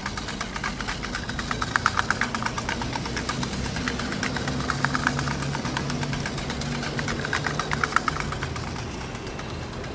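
A small engine running, with a rapid clattering knock over a low hum.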